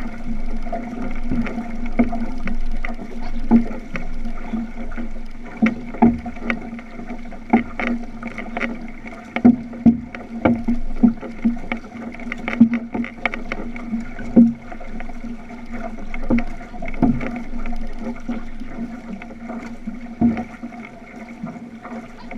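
Outrigger canoe under way: water rushing and slapping along the hull, with frequent irregular knocks and splashes from the paddle strokes. A steady hum runs underneath.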